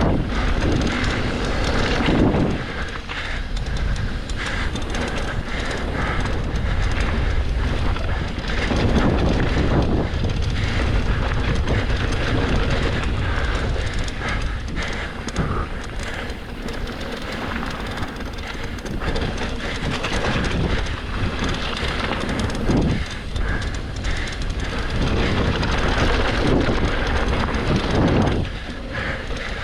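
Mountain bike riding down a rough trail: a continuous rush of wind on the microphone with the bike's knocking and rattling over bumps.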